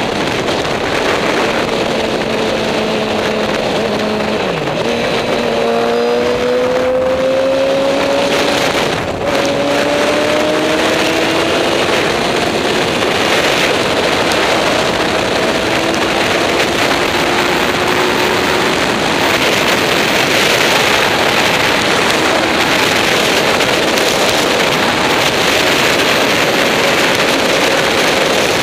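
Heavy wind rush over a helmet-mounted camera at highway speed, with the 2008 Yamaha R6's 600 cc inline-four engine faintly beneath it. The engine note climbs steadily from about five seconds in until about halfway through, with a brief break around nine seconds.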